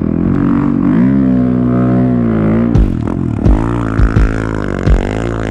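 A snow vehicle's engine running and revving, its pitch dipping and climbing, with several heavy thumps in the second half.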